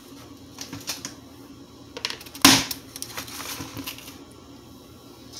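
Clicks and knocks as a plastic protein powder tub is handled and set down on the kitchen counter, the loudest knock about two and a half seconds in, followed by a few lighter clicks.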